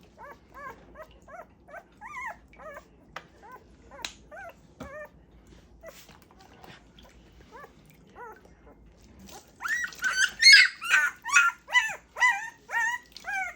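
Newborn Great Pyrenees puppy crying during a bath: a string of short, high-pitched whimpers and squeals, about two a second at first, then louder, higher and faster from about nine seconds in.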